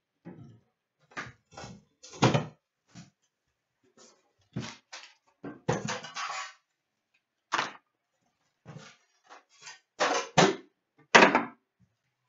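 A shrink-wrapped metal trading-card tin being unwrapped and opened: short irregular rustles of plastic wrap, scrapes and knocks of the tin and its lid, and packs of cards being handled and set down.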